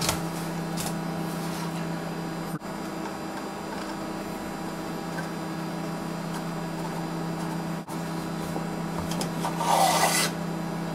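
Steady background hum, with faint handling noises as plastic plug-in terminal connectors and a screwdriver are worked on a plastic instrument case. A brief rasping scrape about a second before the end is the loudest sound.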